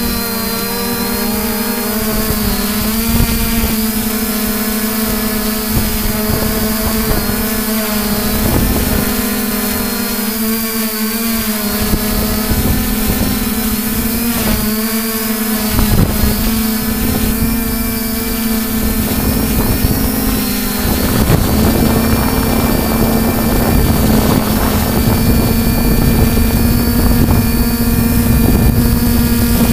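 3DR IRIS+ quadcopter's four electric motors and propellers whining steadily in flight, their pitch wavering slightly as the throttle adjusts. About two-thirds of the way through, a low rumble of wind on the microphone joins in.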